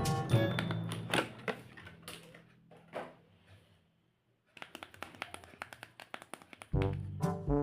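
Background music fades out. After a brief gap, a fast patter of light, sharp clicks like typing follows, and then music with a beat starts again near the end.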